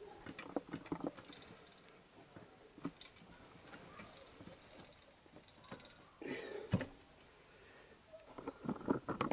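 Scattered light clicks and knocks of metal parts being handled while a motorcycle swinging arm is located on the frame, with a louder thump about seven seconds in.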